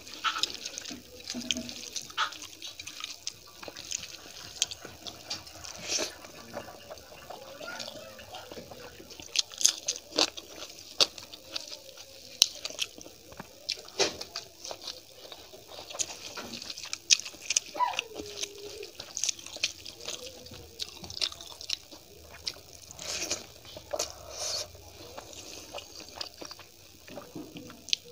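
Close-up wet eating sounds: chewing and lip smacking on mouthfuls of dal and rice eaten by hand, with many irregular sharp clicks and squishes.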